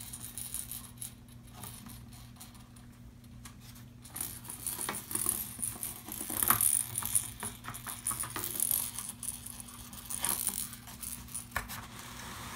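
Kitten batting a small plastic noise-making toy ball around a cardboard box tray: jingling and rattling with many light knocks and scrapes. It gets busier and louder about four seconds in.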